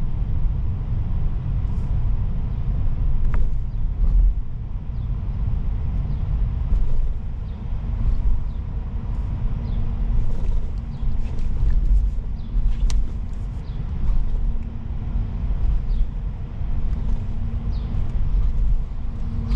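A car running, a steady low rumble with a faint steady hum joining about eight seconds in.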